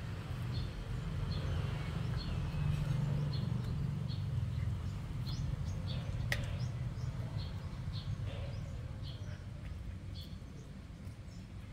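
A puppy gnawing and chewing a pork bone, with a single sharp click about six seconds in. Small birds chirp in short repeated calls throughout, over a low rumble that eases in the second half.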